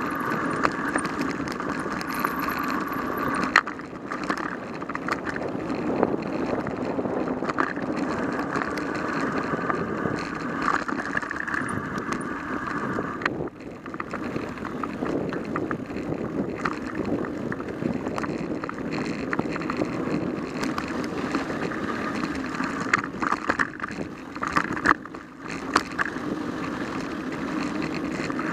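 Mountain bike rolling fast on a dirt singletrack: a steady rattling rolling noise from tyres and frame, with sharp knocks several times as the wheels hit bumps.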